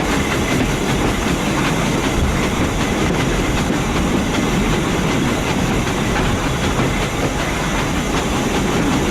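Heritage passenger train running steadily at low speed: a continuous rumble of wheels on rails, with faint clicks from the track.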